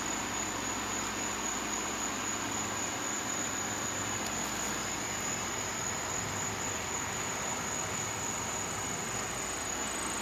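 Insects, such as crickets, calling steadily in a high, unbroken note over a steady outdoor hiss.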